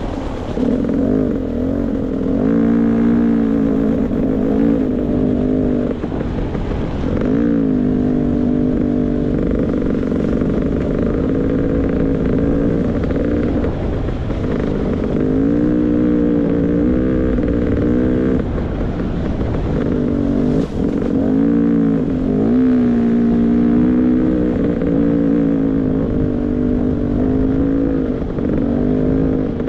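Beta 300 RR two-stroke dirt bike engine under varying throttle on a trail, its pitch climbing and dropping every few seconds as the rider works the throttle and gears.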